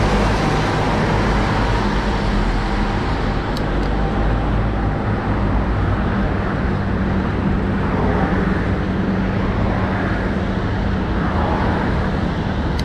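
Steady road traffic noise from cars and motorbikes driving past on a multi-lane road, heard from a moving bicycle, at first inside a road tunnel.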